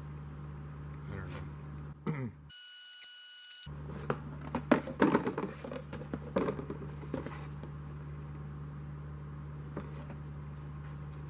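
Objects being handled on a workbench: a run of sharp clicks and knocks in the middle, over a steady low hum.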